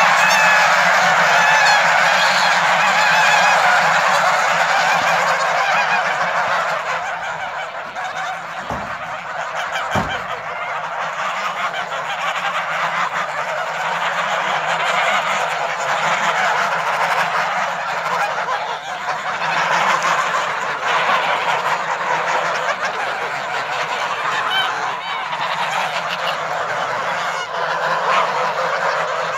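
A large flock of white domestic geese honking all at once in a dense, unbroken din, a little louder in the first few seconds. Two brief low thumps come about nine and ten seconds in.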